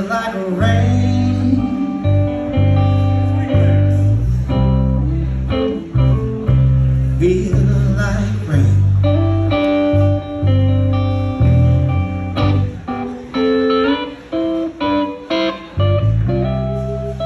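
Live blues band playing, with electric guitar and electric bass guitar carrying the music.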